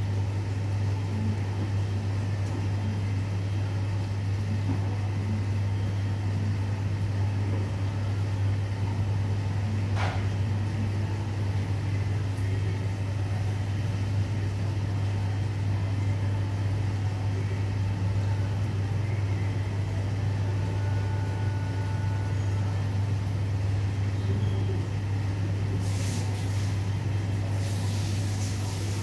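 Steady low machine hum, even in level throughout, with a short sharp sound about ten seconds in and brief hissing noises near the end.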